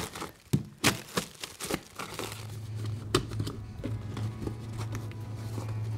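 Plastic wrapping being crinkled and torn off a cardboard box by hand, in irregular sharp crackles and rustles. A low steady hum comes in about two seconds in.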